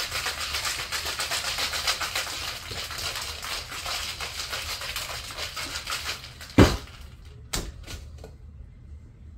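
Ice rattling hard inside a cocktail shaker shaken at a fast, even rhythm, about five strokes a second. The shaking stops about six and a half seconds in with a loud knock, and a lighter knock follows about a second later.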